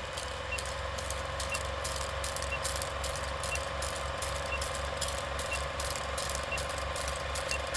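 Film projector sound effect: a steady mechanical clatter of about four or five clicks a second over a low pulsing hum, with a faint short beep once a second.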